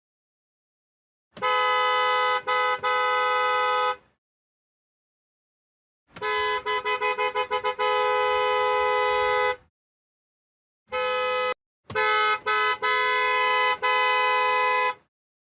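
Car horn honking: a long blast broken twice, then a quick run of short toots that ends in a held blast, then one short toot and another long blast.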